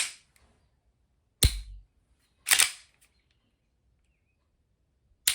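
Full-metal KLI Baba Yaga 1911 Hi-Capa airsoft pistol, unloaded, being cycled by hand: three sharp metal clacks, the first about one and a half seconds in, the second a second later, and the last near the end.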